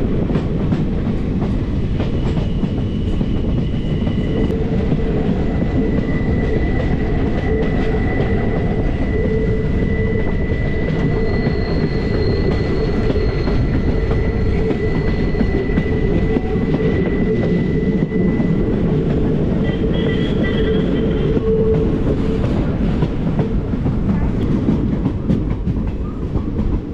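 Passenger train coaches running along the track, heard from an open doorway: a steady loud rumble of wheels on rails with clickety-clack, and a thin steady high tone through the middle.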